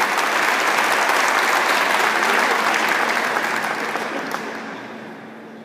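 Audience applauding, fading away over the last two seconds or so.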